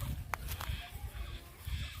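Outdoor farmyard ambience: uneven low rumbling like wind on the microphone, a sharp click about a third of a second in, and faint short animal calls.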